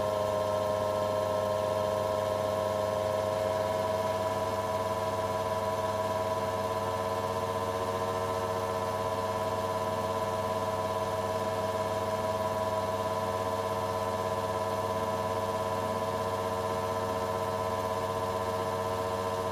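Motor-driven milling spindle on a watchmaker's lathe, belt-and-pulley driven, running at a steady speed with an even hum of several steady tones, as a small end mill cuts into the edge of a watch movement bridge.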